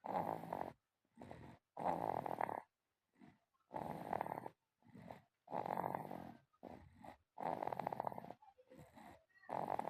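A sleeping child snoring in a steady rhythm: a snore on each breath in, about every two seconds, each followed by a softer breath out.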